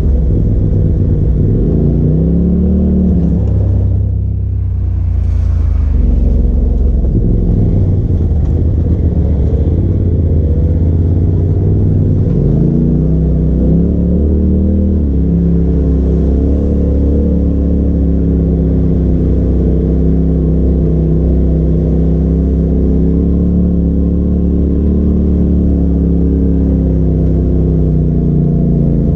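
Side-by-side UTV engine running as it climbs a dirt trail, its pitch rising and falling as the throttle is opened and eased, with a brief drop in level about four seconds in.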